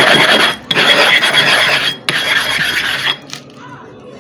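Gritty back-and-forth rasping of a worn, dished sharpening stone being ground flat by abrasion, in strokes of about a second with short breaks, stopping about three seconds in. The rubbing wears the stone down so that the hollow in its centre is gradually levelled out.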